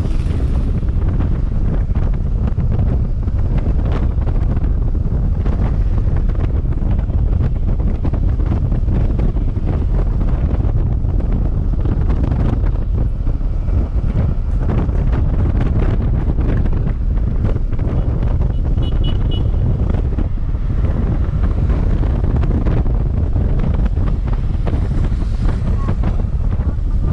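Strong wind buffeting the microphone, a steady low rumble with gusts and knocks, over the noise of a moving vehicle.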